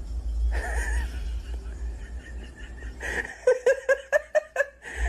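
A cat hisses once about half a second in, then from about three seconds in a person laughs in quick repeated bursts.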